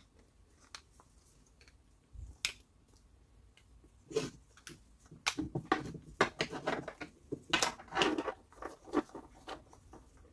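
Hard plastic and metal parts of a cordless drill being handled and fitted by hand: the motor and gearbox assembly and trigger switch go into the plastic housing half. A sharp click about two and a half seconds in, then a dense run of knocks, clicks and rustling from about four seconds until shortly before the end.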